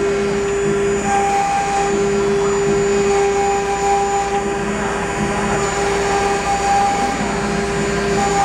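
Six high-speed Changsheng spindles of a multi-head CNC router running together with a steady whine while their bits engrave a wooden board, over a hiss of cutting.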